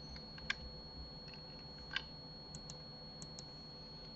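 A few scattered clicks of a computer keyboard and mouse, the two strongest about half a second and two seconds in, then several fainter ones, over a quiet steady background.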